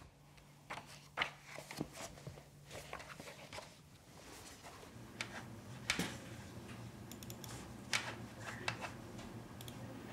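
Quiet room tone with a faint low hum and scattered small clicks and handling noises.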